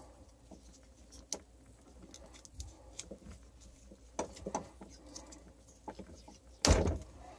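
Vinyl electrical tape being pulled off its roll and wound around twist-on wire connectors: scattered soft crackles and handling clicks, with a louder short rasp near the end.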